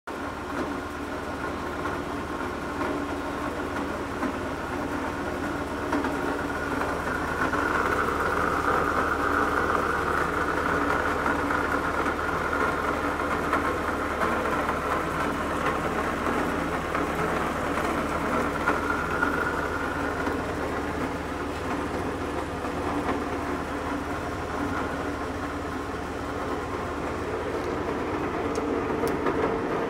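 Supermax G-2238 geared-head engine lathe running with its chuck spinning: a steady whine of several tones from the headstock gearing over a low motor hum.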